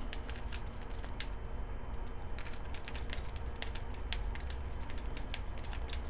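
Screwdriver turning the clamp screws of a metal MC cable connector to loosen them: light, irregular metal clicks and ticks, with a short lull near the middle, over a steady low hum.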